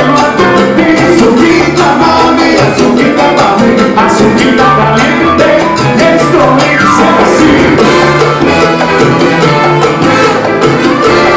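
Live salsa orchestra playing: piano, congas and timbales with a horn section, and a lead singer at the microphone.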